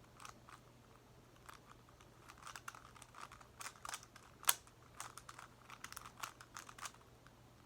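Faint, irregular plastic clicks and clacks of a Megaminx puzzle's faces being turned by hand, with one sharper click a little past the middle.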